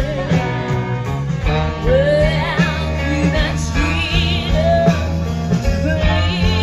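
Live soul band playing: singing over electric guitar, bass and drums, with a heavy steady bass line and held notes that waver with vibrato, heard through the stage PA.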